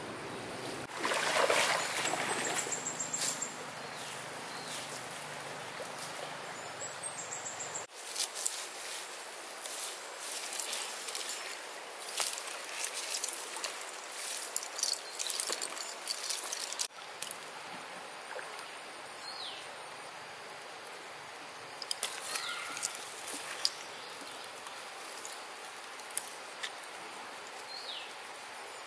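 Water splashing and streaming as a fishing net is gathered up out of a shallow stream, then dry leaves and twigs crackling with sharp clicks as the net is dragged and pulled apart on the bank. A few short chirps sound over a steady outdoor hiss near the end.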